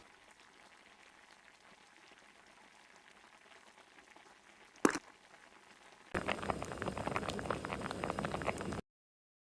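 Food bubbling on the stove: a faint crackle at first, then from about six seconds in a louder, dense bubbling crackle for nearly three seconds that cuts off suddenly. A single sharp click comes a little before the loud part.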